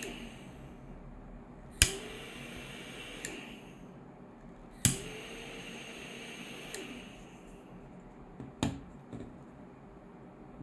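Glock-shaped jet-flame gas lighter: a sharp click as the trigger fires it, then the torch flame hisses for about a second and a half and cuts off with a softer click. This happens twice, and near the end come a few more sharp clicks without a flame.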